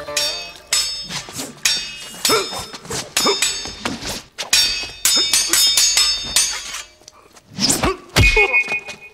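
Fast series of metal weapon clashes, a spear against a sword in staged fight sound effects, each hit ringing briefly, coming several a second for about seven seconds. A heavier hit lands about eight seconds in, followed by a short ringing tone.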